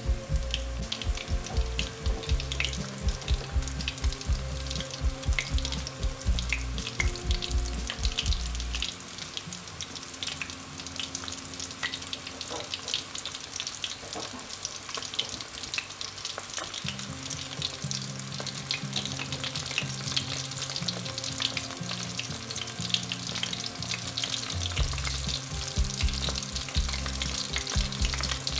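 Breadcrumb-coated prawns deep-frying in hot oil in a kadai: a steady, dense crackle and sizzle of bubbling oil. Low held notes change in steps underneath, strongest in the first third and near the end.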